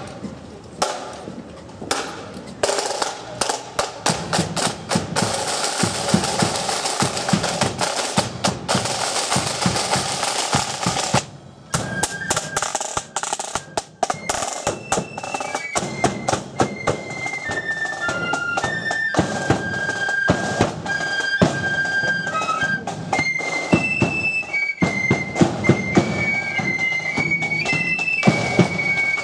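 Marching flute band on the move: snare drums and a bass drum beat out a rolling street beat with drum rolls, and a little under halfway through, after a brief break, the flutes strike up a tune over the drums.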